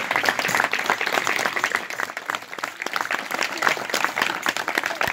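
Small audience applauding: many hands clapping in a dense, even patter.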